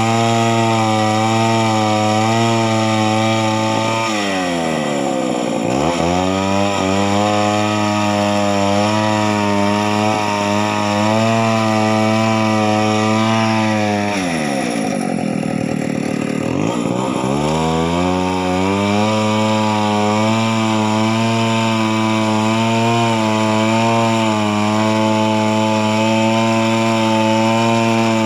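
Chainsaw engine running at high revs. Its pitch sinks steeply twice, about four seconds in and again around fifteen seconds, then climbs back up.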